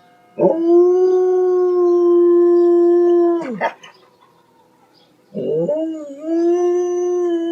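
A dog howling: one long, steady howl of about three seconds that drops away at the end, a short yelp, then a second long howl starting a little past halfway and still going at the end.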